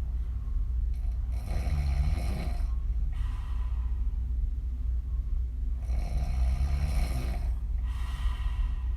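A woman snoring open-mouthed, her lips blowing out loosely as she breathes out. Two loud snoring breaths come about four and a half seconds apart, over a steady low hum.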